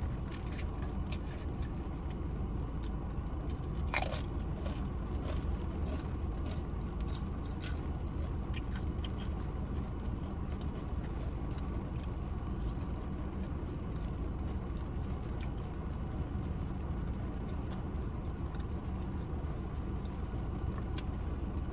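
A person crunching and chewing tortilla chips, scattered crisp bites and crackles, one sharper crunch about four seconds in, over a steady low background rumble.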